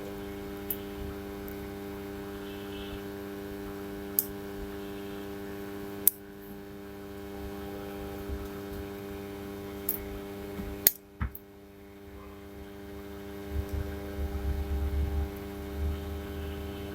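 Steady electrical hum with a few sharp, scattered clicks, the loudest about eleven seconds in, and a low rumble in the last few seconds.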